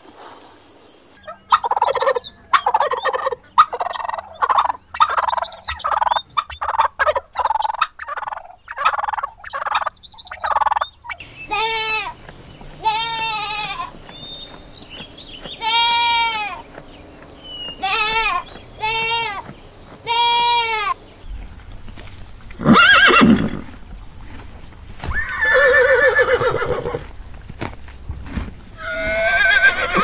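A string of farm animal calls. For the first ten seconds comes a run of quick, choppy calls. Then young goats give a series of separate bleats, each rising and falling in pitch, and near the end horses whinny a few times, with wavering pitch.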